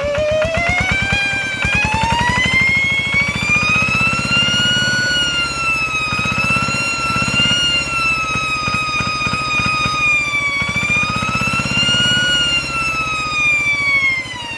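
Two-wheel hand tractor's single-cylinder diesel engine revving through a new aftermarket exhaust: a steady low chugging with a loud, high whistle over it. The whistle climbs in pitch over the first two seconds, wavers up and down with the throttle, and falls away near the end.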